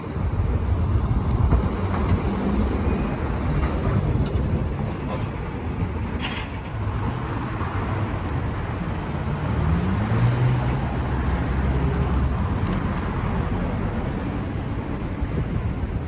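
City street traffic: cars and SUVs passing through an intersection, a steady engine and tyre rumble. One engine's pitch rises about nine seconds in, and a short hiss comes about six seconds in.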